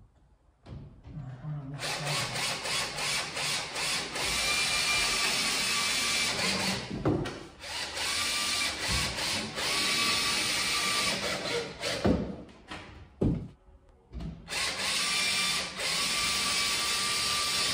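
Electric drill driving screws into plasterboard: the motor whines in long runs with short stops between them, and a longer pause comes a little past the middle before it runs again.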